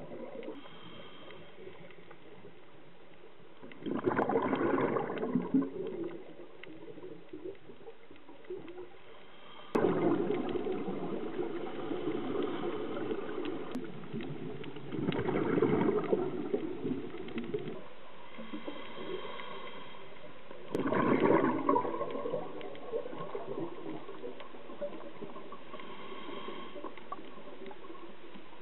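A scuba diver's breathing recorded underwater: exhaled bubbles gurgle out of the regulator in bursts about every five or six seconds, with a fainter steady underwater background between them.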